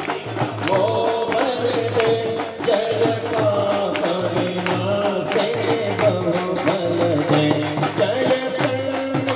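Devotional aarti music: a hymn sung over instruments with a steady percussive beat.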